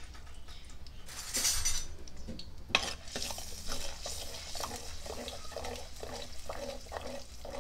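Steel spoon stirring ground masala paste in hot oil in a pan, scraping the pan with a run of short strokes over a faint sizzle, as the masala starts its slow frying on low heat. A brief hiss comes early on and a sharp knock about two and a half seconds in.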